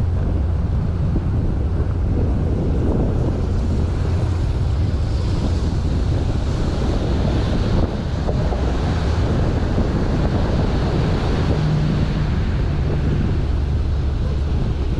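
Small open cruise boat under way: its engine runs with a steady low hum under the rush of water along the hull and wind on the microphone. A brighter hiss builds around the middle while the boat passes under a low bridge.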